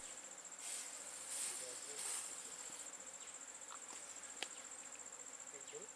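Insect trilling steadily in a high, finely pulsing tone. Three soft hissing swells come in the first half, and there is one sharp click about four and a half seconds in.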